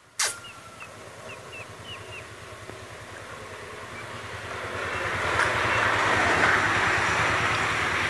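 A sudden sharp falling swish, then a caged songbird gives about six short, high chirps. After that the engine of a passing motor vehicle grows louder, with a low pulsing note, and peaks about six seconds in.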